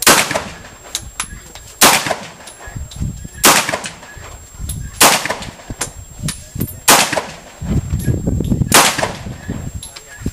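A pistol fired single shots, six of them about every two seconds, each a sharp crack with a short tail.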